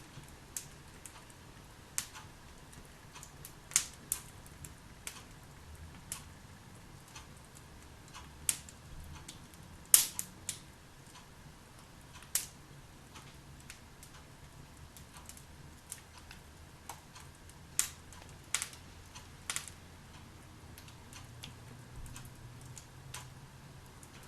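Wood fire in a fireplace crackling, with irregular sharp pops and snaps of burning logs, the loudest about ten seconds in.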